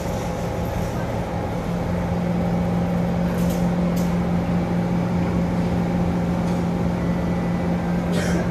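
Cabin noise inside a moving MRT train: a steady rumble with a strong low droning tone, a little louder from about two seconds in, with a few faint clicks.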